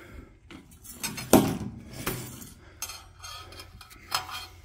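Metal dipstick rod clinking and scraping against the steel filler neck of a tractor fuel tank as it is worked down to measure the fuel. A few separate knocks, the loudest just over a second in.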